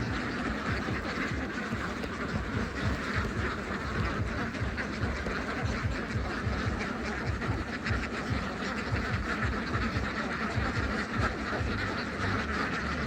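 A large flock of domestic ducks quacking continuously, many overlapping calls at once, with a low irregular rumble underneath.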